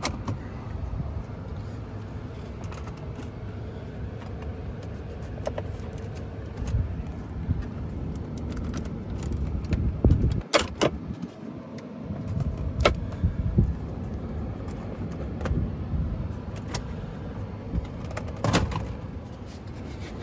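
Plastic dash trim being handled and pried loose in a Toyota Tundra's cabin: a low rumble of handling with several sharp clicks and snaps, the loudest about halfway through and near the end.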